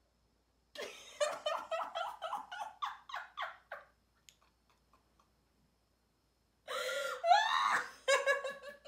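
A woman laughing hard in a quick run of short bursts for about three seconds. After a pause, a second, louder fit of laughter comes near the end.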